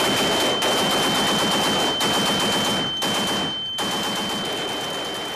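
Sustained automatic weapons fire in long rapid bursts, broken by short pauses about half a second, two and three-and-a-half seconds in, and growing fainter near the end. A steady high-pitched whine runs under it.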